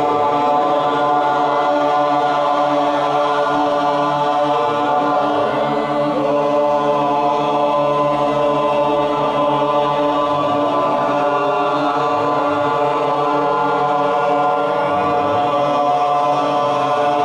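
A group of voices chanting together, holding one long, steady tone without a break.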